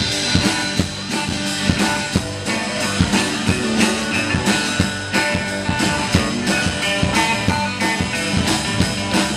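Live band playing the instrumental intro of an upbeat tropical rock song: acoustic and electric guitars and bass over hand-played congas and a steady beat.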